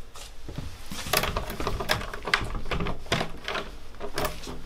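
Footsteps and a door being handled indoors: a string of irregular sharp knocks and clicks, about one or two a second, over a low room rumble.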